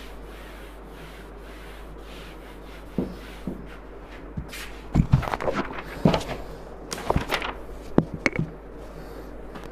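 Soft rubbing strokes of a duster wiping a whiteboard, then a run of sharp knocks and clatter, loudest about five and eight seconds in.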